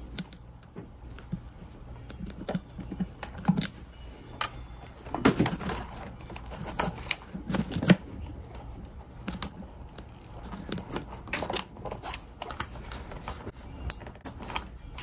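Fingers handling and pressing a small plastic multi-pin hall-sensor connector into its socket on a Ninebot Max controller: irregular small plastic clicks, taps and wire rustling, thickest in the middle, as the plug is worked home until it latches.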